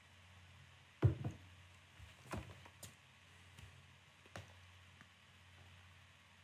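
A drinking glass set down on a desk with a sharp knock about a second in, followed by a few lighter knocks and taps, over a faint steady low hum.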